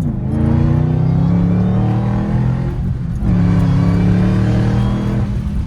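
Supercharged 5.4-litre V8 of a 2012 Shelby GT500 under hard acceleration, heard from inside the cabin: the engine pulls up through the revs, drops suddenly on a gear change about three seconds in, then pulls again.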